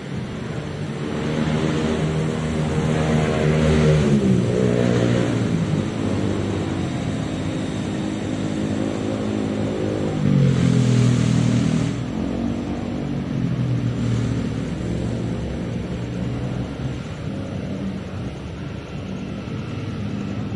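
Motorcycle engines running and revving, rising and falling in pitch. They are loudest about four seconds in and again around ten to twelve seconds in.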